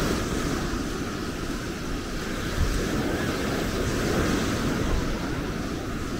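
Steady beach ambience: surf washing with wind rumbling on the microphone.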